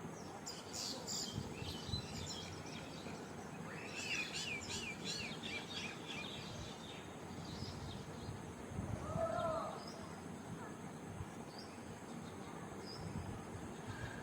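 Birds chirping in short bursts, about a second in and again from around four to five seconds, with a brief pitched call near the middle, over a steady low background hum of noise.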